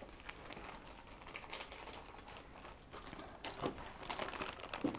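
Quiet crinkling and rustling of plastic parts bags and bubble wrap being handled, with light scattered clicks; a few louder rustles about three and a half seconds in.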